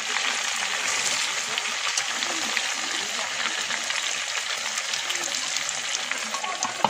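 Whole chicken deep-frying in hot oil in a wok, a steady sizzle with small crackles. Near the end there is a short pitched scrape.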